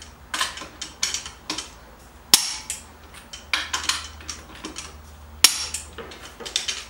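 Click-type torque wrench set to 100 lb-ft going round the lug nuts: a run of short ratcheting clicks, with two sharp, loud clicks, one about two seconds in and another about three seconds later, as the wrench breaks at its set torque.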